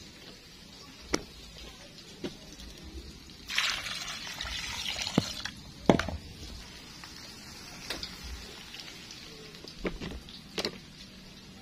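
Liquid being poured, a splashing hiss for about two seconds starting three and a half seconds in, among scattered knocks and clinks of kitchen bowls and utensils, the sharpest about six seconds in.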